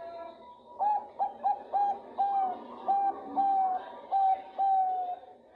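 Zebra dove (perkutut bangkok) cooing: a run of about nine short coos starting about a second in, the later notes drawn out longer. It is a hen's call to a male.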